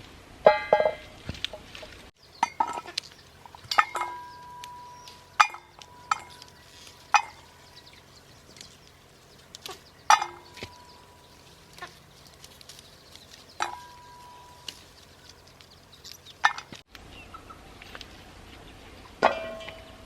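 Backyard chickens clucking and calling now and then, among scattered sharp clicks and knocks, some followed by a short ringing tone.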